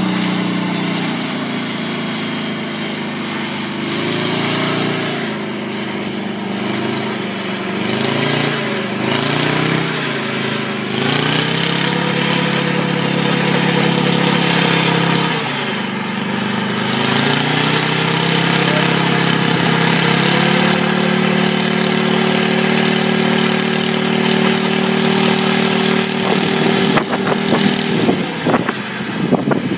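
Engine of a homemade helicopter running with its rotor turning; the revs rise and fall several times, then hold steady for several seconds before dropping near the end, when choppy gusts of noise come in.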